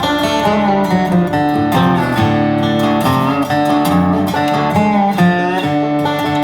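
Background music: acoustic guitar strumming and picking in a country style.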